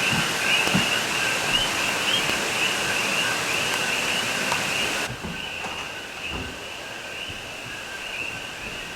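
Dense chorus of Puerto Rican coqui frogs, many overlapping short calls rising in pitch, with a high hiss underneath. About five seconds in, the hiss cuts off abruptly and the whole din drops in level, the frog calls carrying on quieter.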